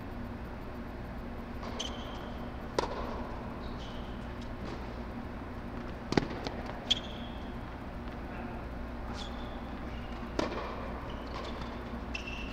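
Tennis rally on a hard court: a handful of sharp pops of racquets striking the ball and the ball bouncing, the loudest about six seconds in when the near player hits a low ball, with short squeaks of shoes on the court between shots. A steady low hum runs underneath.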